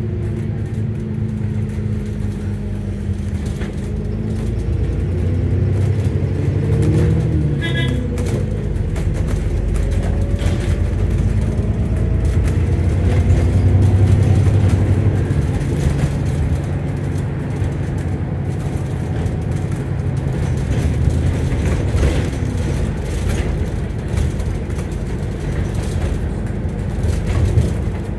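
Alexander Dennis Enviro400 MMC double-decker bus heard from inside the passenger saloon while under way: engine, drivetrain and road noise, getting louder as it speeds up to a peak about halfway through, then easing. A brief high-pitched beep sounds about eight seconds in.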